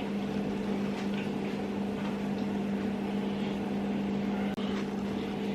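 Banana fried dumplings sizzling in hot oil, an even crackling hiss, over a steady low hum. A faint click about four and a half seconds in.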